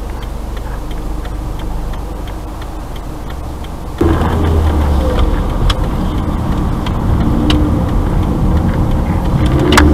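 Car's turn-signal indicator ticking steadily inside the cabin while the engine idles. About four seconds in, the engine gets suddenly louder and stays up as the car pulls away and turns.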